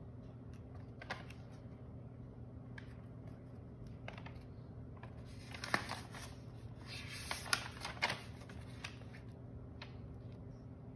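A handmade folded paper card being handled and its pages turned: scattered light paper rustles, with a cluster of louder crisp crackles of paper in the middle, over a steady low hum.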